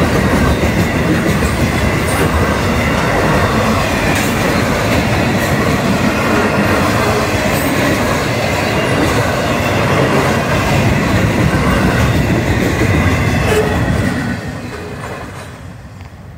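Freight cars of a Florida East Coast intermodal train rolling past at close range: a steady rumble and rattle, with wheels clicking over the rails. The sound dies away from about fourteen seconds in as the end of the train moves off.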